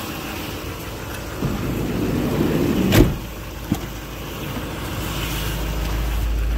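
A cargo van's side door being shut: a rushing rumble builds for about a second and a half and ends in a loud bang about three seconds in. A short click follows as the front passenger door handle and latch are pulled open.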